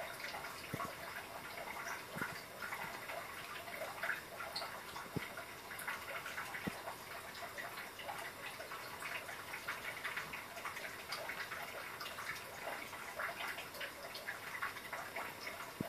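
Domestic cat eating food off its paw: a steady run of soft, irregular wet clicks from licking and chewing, with a few sharper clicks here and there.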